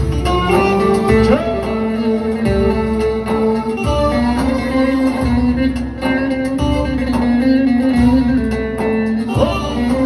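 Live amplified Turkish folk music: a bağlama (long-necked saz) and an electronic keyboard playing together, with a man singing into a microphone.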